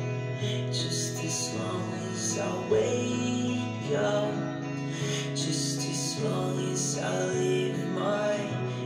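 Music with strummed guitar, an instrumental stretch of a song played back through Artos Audio Moonglow Cell floorstanding hi-fi speakers in a room.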